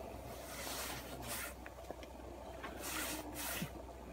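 About four short, noisy scraping or rubbing strokes, each a third to half a second long, over a steady low hum.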